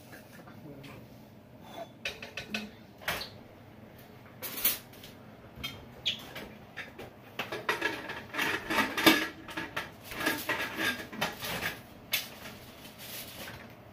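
Kitchen clatter: dishes and plastic food containers knocking and rattling as they are handled, in irregular short knocks that are busiest in the second half.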